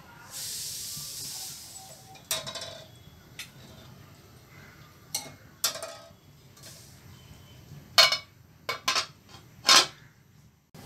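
Stainless steel cooking pot and lid clinking and clanking, with a cluster of loud strikes near the end as the lid is set on the pot. A brief hiss comes near the start.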